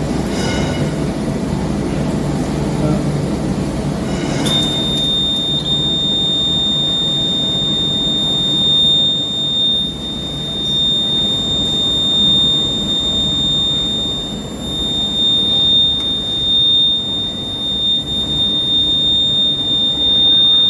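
Simplex fire alarm panel's buzzer sounding a steady high-pitched tone that starts suddenly about four and a half seconds in and holds without a break, over a low background rumble.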